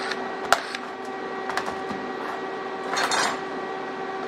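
Sharp metal clicks as a bolt and freshly welded standoff are worked loose from a steel fixture, with a brief rasping burst about three seconds in, over a steady hum.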